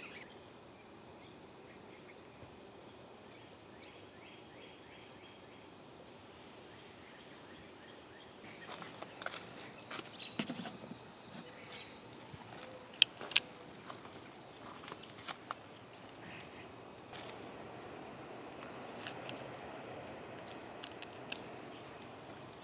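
Steady high trilling of insects in the garden, with scattered sharp clicks and rustling starting about eight seconds in; two louder clicks a little past the middle.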